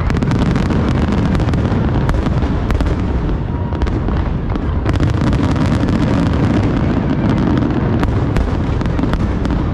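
Big aerial fireworks display going off: a dense, continuous barrage of overlapping booms, bangs and crackles.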